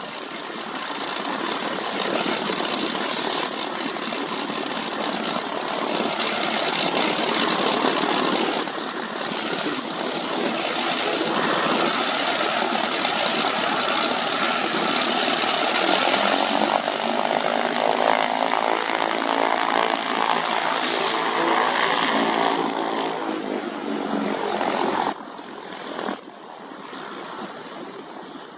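Airbus A330 jet airliner's engines and rushing airflow during landing. An engine tone comes up over the noise about two-thirds of the way through, and the sound drops off sharply near the end.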